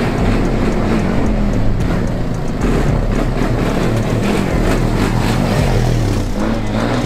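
A motor vehicle engine running, its pitch rising and falling, with music playing over it.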